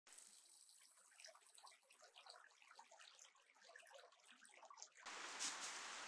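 Faint trickling and dripping of water for about five seconds. It cuts abruptly to a louder, steady rushing-water hiss.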